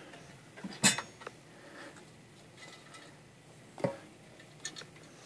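Sharp knocks from soldering iron stands being lifted and set down on a workbench, one about a second in and another a little before four seconds, with a few lighter clicks near the end.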